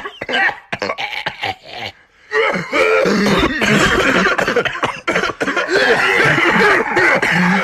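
A person coughing in short, choppy bursts over the first two seconds. After a brief pause, loud, continuous vocal sounds take over and carry on to the end.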